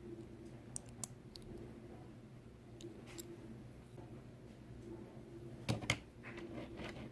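Small sharp clicks and taps of tiny diecast car parts and hand tools being handled while wheels are fitted, with two louder clicks close together about six seconds in, over a steady low hum.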